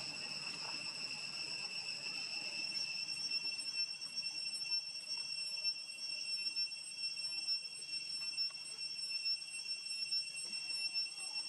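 Insects droning outdoors in one steady, high-pitched, unbroken tone, with faint rustling beneath.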